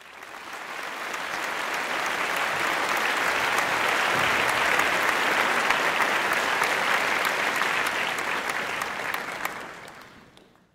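Applause from a crowd of many people clapping, fading in over the first couple of seconds, holding steady, and fading out near the end.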